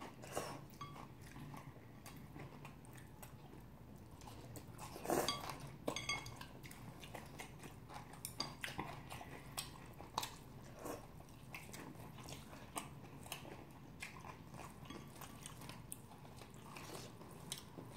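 Quiet mouth sounds of people eating noodles and meat: chewing and sucking in noodles, with scattered light clicks of chopsticks on dishes, the loudest bit about five seconds in.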